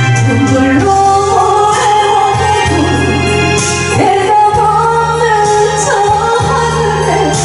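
Singing over backing music: a slow melody in long, held notes over a steady bass line.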